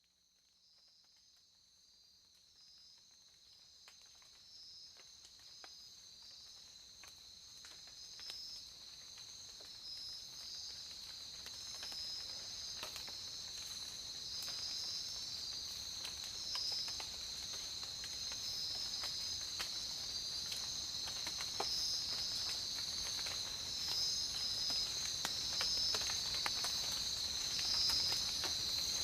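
Tropical rain ambience fading in from silence: a steady, pulsing chorus of insects, with scattered raindrops pattering that grow denser and louder.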